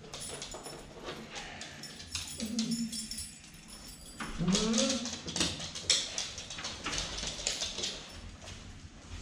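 Dogs whining and yelping, eager to go out, with short rising cries about two and a half and four and a half seconds in. Leash clips click and clink as the leashes are fastened.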